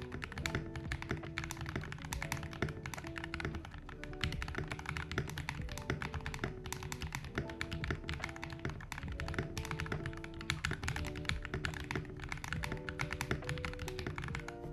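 Fast, continuous typing on a Royal Kludge RK68 mechanical keyboard with lubed Akko Radiant Red linear switches: a dense, irregular patter of keystrokes, several a second. Background music plays underneath.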